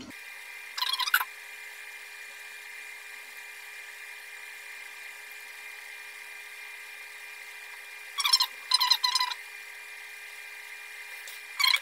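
Soldering iron pressing desoldering braid onto fluxed circuit-board pads: short crackling sizzles of flux and solder, about a second in, in a cluster around eight to nine seconds in, and again at the end. A faint steady high whine runs under them.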